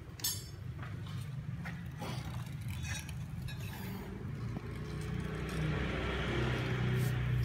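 A motor running with a steady low hum that grows louder over the last few seconds, with a few light clicks and a sharp scrape near the start.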